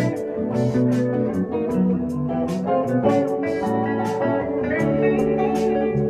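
A live band playing with electric guitars and an electric keyboard, full and steady, with sharp percussive hits recurring throughout.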